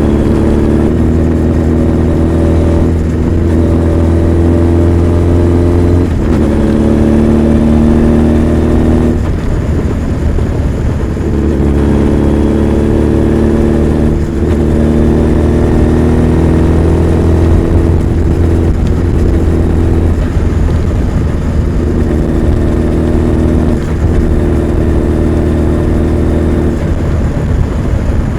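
Honda CB1300 Super Bol d'Or's inline-four engine pulling on the move, its pitch holding steady for a few seconds at a time, then stepping up or down several times as the throttle and gears change.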